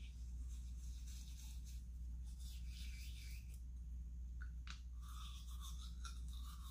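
Toothbrush bristles scrubbing toothpaste onto teeth, in about three short, faint, scratchy bursts, over a steady low hum.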